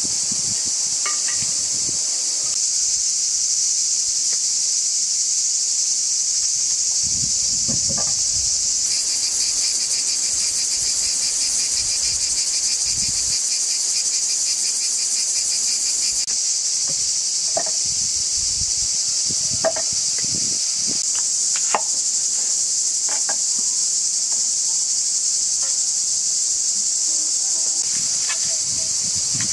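Steady high-pitched insect chorus, with a second, rapidly pulsing insect buzz joining for several seconds about a third of the way in. Occasional light clicks and knocks sound over it.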